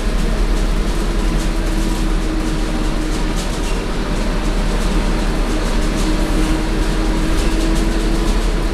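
Inside a Scania K230UB city bus under way: its Scania DC9 five-cylinder diesel runs steadily with road noise, a low rumble underneath. A steady hum rises out of the noise twice, and light clicks and rattles come through.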